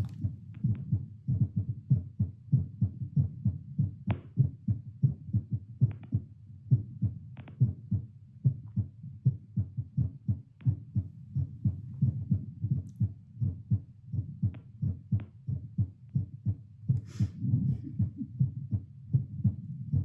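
Human heartbeat picked up by a Littmann CORE digital stethoscope on the chest and played out loud: steady, regular low thumps at about 82 to 85 beats a minute.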